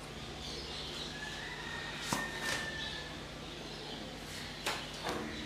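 Pages of a paper book rustling as it is leafed through, a few soft strokes in a quiet room. A faint, thin, high steady tone sounds for about two seconds in the first half.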